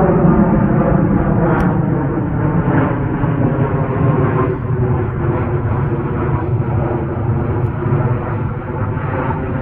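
Steady, loud engine noise: a low rumble with an unchanging hum of several steady tones over it.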